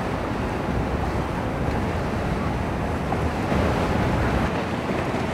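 Wind blowing on the microphone over waves and boat engines, a steady low noise with no distinct events.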